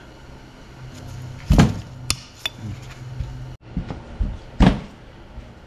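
Metal hand tools clicking and knocking against a Ford Model T connecting rod as the twisted retaining wire is worked out of the wrist-pin clamp bolt. Light clicks with two louder knocks, about a second and a half in and near the end, over a steady low hum.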